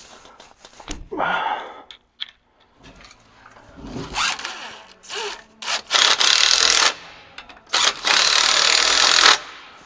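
Power ratchet run in two bursts near the end, about one second and then a second and a half long, driving in the bolts that hold a driveshaft u-joint's bearing caps to the yoke. Before that, softer scraping and knocking of metal parts being handled.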